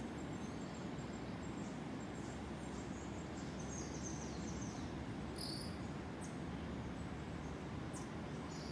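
Tropical rainforest ambience: insects and birds calling over a steady low rush. A pulsed high trill runs through the first half, bursts of high chirps come in the middle, and there are a few short sharp chirps near the end.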